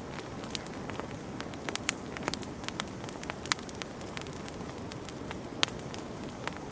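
Campfire burning, wood crackling with irregular sharp pops over a steady low rush of flame; a few louder pops stand out, around two, three and a half and five and a half seconds in.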